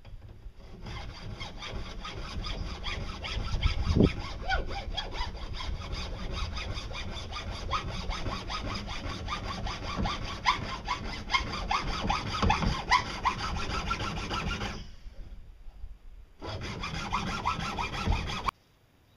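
Hand saw sawing through a pipe in quick back-and-forth strokes. It stops, starts again after a second or two, and cuts off suddenly near the end.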